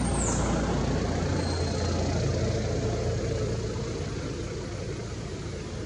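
Steady low rumble of a running motor vehicle's engine under an even hiss, slowly fading over the last couple of seconds.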